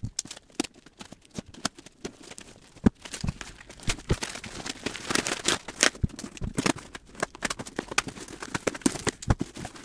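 A cardboard parcel being opened by hand in fast-forward: rapid clicks, knocks, rustling and tearing of box and packing, busiest about halfway through.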